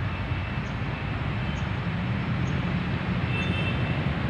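Steady low rumble of road traffic with passing vehicle engines.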